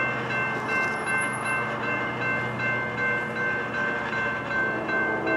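Railroad crossing warning bell ringing rapidly, about three strokes a second, over the low hum of an approaching train.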